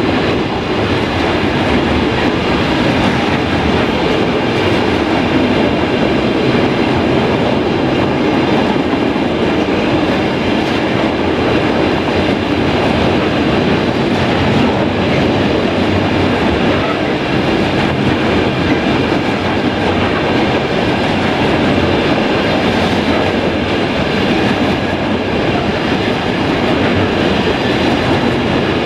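A train running past at a steady speed, its wheels rolling on the rails, with several faint high tones held steady above the rumble.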